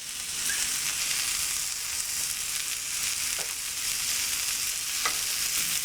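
Peaches and red onion frying in butter in a pan: a steady sizzle, with a few faint ticks.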